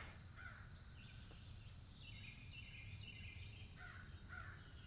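Faint forest birdsong: scattered short falling call notes, then a few harsher, caw-like calls repeated near the end.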